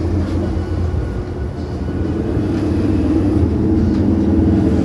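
A steady low mechanical hum with a deep rumble underneath, growing somewhat louder toward the end.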